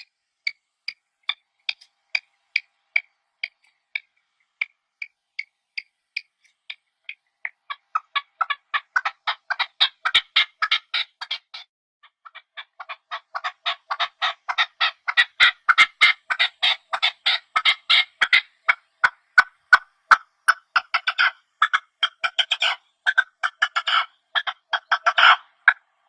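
Partridge calling: a string of short, repeated calls, about two a second at first, that speed up about eight seconds in into a fast, dense chatter. The chatter pauses briefly near the middle, resumes, and breaks into clustered bursts toward the end.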